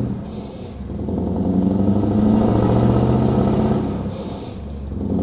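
Scania S770's 16.4-litre V8 diesel pulling hard through a short exhaust pipe, rising in pitch. The engine note drops away briefly twice, about half a second in and about four seconds in, each time with a short hiss, then comes back.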